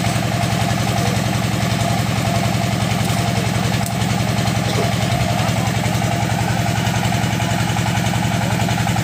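Engine of a crawler-mounted XY hydraulic drilling rig running steadily, with an even, rapid low pulsing.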